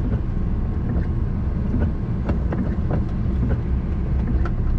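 Steady low rumble of an HGV lorry's engine and road noise, heard from inside the cab while driving, with a few faint light ticks scattered through it.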